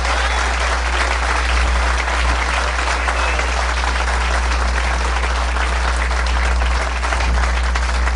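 Audience applauding steadily, with a low steady hum underneath.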